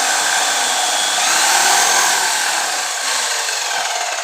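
Electric drill running at speed, spinning the rotor of a rewound ceiling-fan motor used as a generator. It is a loud, steady whirring that eases off a little near the end.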